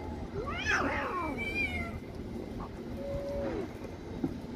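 Several stray cats meowing, their cries overlapping in the first second or two, then a single drawn-out lower meow about three seconds in, over a steady low background rumble.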